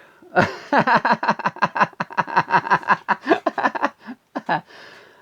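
A man laughing in a long run of quick, rapid "ha" pulses that dies away about four and a half seconds in.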